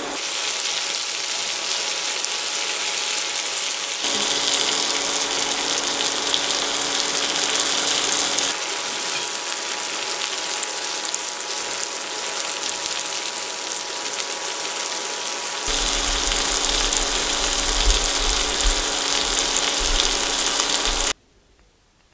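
Vegetables and soy sauce sizzling in a hot oiled frying pan, a steady crackling hiss with a faint steady hum underneath. The sizzle shifts between louder and softer stretches and cuts off suddenly near the end.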